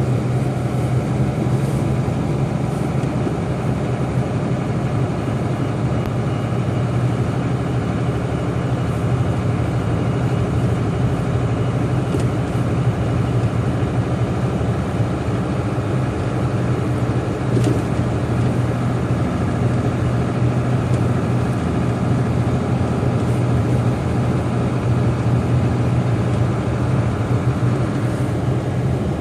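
Airliner jet engines at taxi idle: a steady, unchanging low rumble with a hum.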